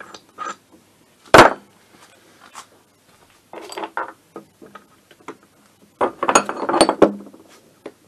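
Metal tools and engine parts clinking and knocking against an aluminium moped engine crankcase as it is worked on. There is one sharp, loud knock about a second and a half in, then a few clinks, and a quick run of clinks around six to seven seconds in.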